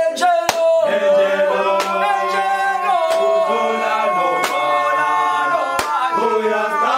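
Group of voices singing a gwijo chant in long, held notes that slide between pitches, with a sharp hit a little over once a second.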